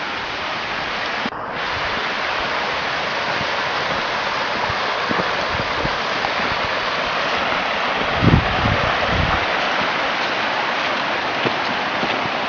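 Steady rush of flowing water from a stream, with a few low thumps about eight seconds in.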